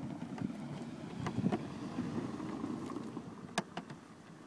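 Wind rumbling on the microphone, with a few light clicks about one and a half and three and a half seconds in.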